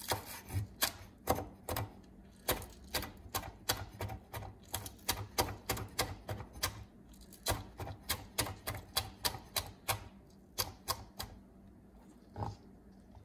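Cleaver chopping green onions on a wooden cutting board: a steady run of sharp knocks, about three a second, that stops about eleven seconds in, with one more chop near the end.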